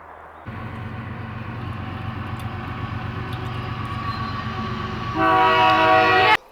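Train rumbling past, the diesel locomotive's engine drone growing louder, then its air horn sounding a loud chord of several tones for about a second near the end before the sound cuts off abruptly.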